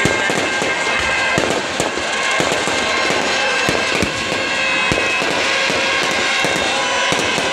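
Aerial fireworks going off in quick, irregular bangs and crackles, one burst after another.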